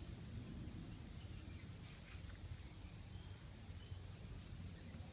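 Steady high-pitched insect chorus over a low rumble.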